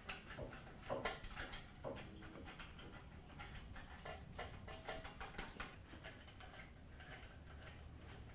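Faint, irregular clicks and scrapes of a hand nut driver turning the worm-gear screws of hose clamps on chrome exhaust heat shields, metal on metal.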